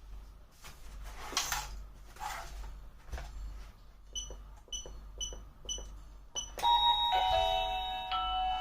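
A run of short electronic key beeps, about two a second, then, about six and a half seconds in, an apartment video intercom's indoor monitor starts ringing with a melodic electronic calling ringtone.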